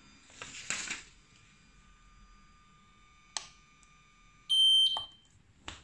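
Teeth-whitening lamp's control panel giving one loud, high beep about half a second long as its button is pressed; a faint steady whine stops just as it beeps. Short clicks come before and after, with a rustle near the start.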